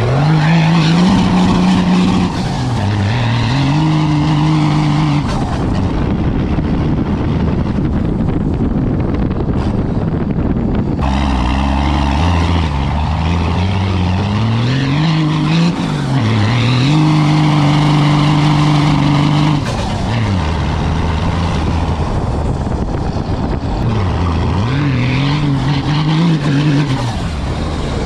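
Cummins 6BT six-cylinder turbodiesel in a Ford F-350 pulling hard under acceleration off-road. Its pitch climbs, holds high and drops several times as it runs up through the gears, over a steady rush of tyres on dirt.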